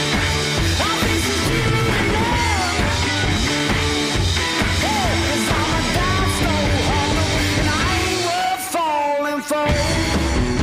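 Rock music with a steady beat and a singing voice; the bass and drums drop out briefly about nine seconds in, leaving the vocal and guitar, then come back.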